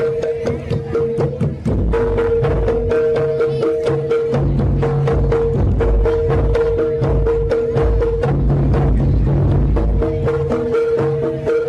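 Traditional East Javanese Bantengan accompaniment music: fast, dense drumming and struck percussion under a held melody note that breaks off and comes back several times, over a low steady bass.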